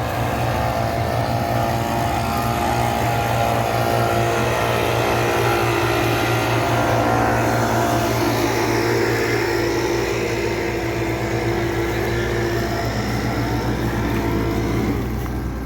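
Engine-driven air blower running steadily, blowing the dust off a combine harvester to clean it down at the end of the working day. The engine hum stays even while the pitch wavers slightly as the throttle shifts.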